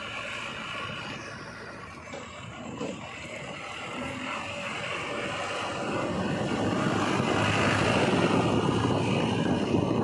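JCB 3DX Plus backhoe loader's diesel engine running as the machine moves, growing louder over the second half.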